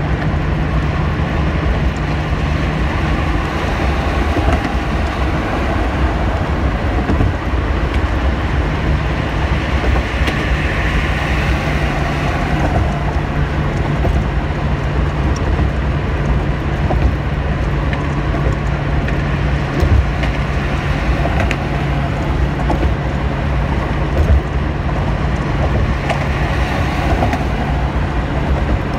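Steady road noise inside a car's cabin at highway speed: tyre and engine hum with a steady low drone. A couple of brief thumps come about two-thirds of the way through as the tyres cross joints in the bridge deck.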